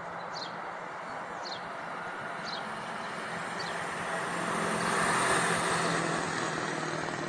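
School bus engine running as the bus drives up the road and passes, its steady low hum growing louder to a peak about five seconds in. Four short high chirps sound in the first four seconds.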